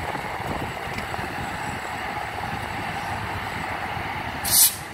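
Union Pacific freight train rolling past: a steady rumble of wheels on rail. About four and a half seconds in there is a short loud hiss.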